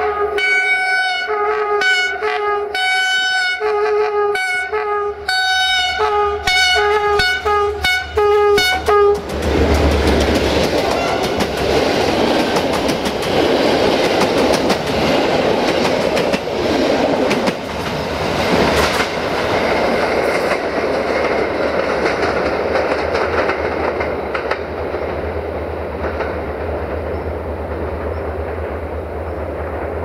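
Diesel locomotive horn, 64-1363-2, played as a quick rhythmic run of short blasts mixed with a few longer held notes for about the first nine seconds. Then the locomotive and its passenger coaches pass close by: engine rumble and wheels clacking over the rail joints, slowly easing off.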